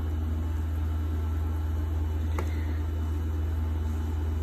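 Tattoo machine running with a steady low hum, its motor and needle stroke giving a fine even pulse. A faint click about two and a half seconds in.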